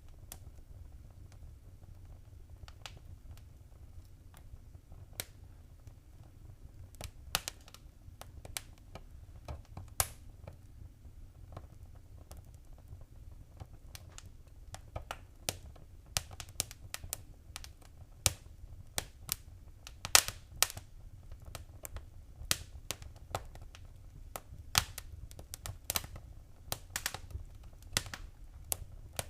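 Fire in a fireplace crackling: irregular sharp pops and snaps over a low steady rumble. The pops are sparse at first and come more often from about halfway through.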